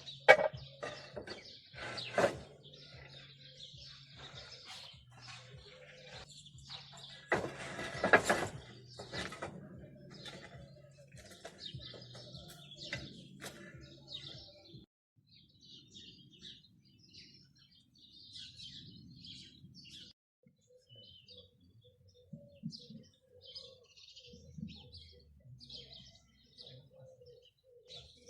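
Birds chirping. Through the first half there are also sharp knocks and clatter over a steady low hum, with the loudest hits near the start and about 8 seconds in.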